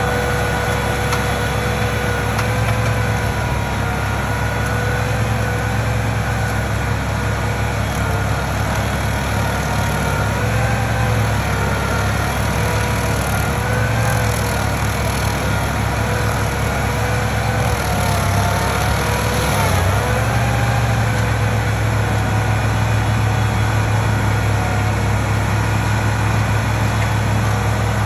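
Engine of heavy stump-removal machinery running steadily with a whine whose pitch wavers slightly, dipping briefly and recovering about two-thirds of the way through.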